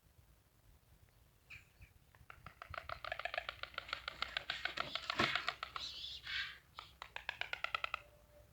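White storks bill-clattering: a rapid, even rattle of beaks snapping together that starts about two seconds in, grows louder, and stops abruptly near the end.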